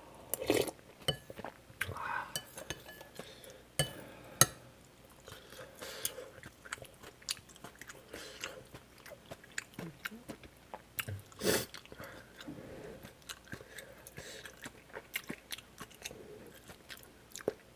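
Close-miked chewing and eating of kimchi stew: irregular wet mouth clicks and chewing, with a few sharper knocks, the loudest about four and a half seconds in.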